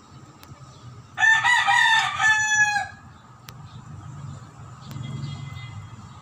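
A rooster crows once, a loud call of about a second and a half that drops in pitch at the end, over a few faint clinks of a spoon on a plate.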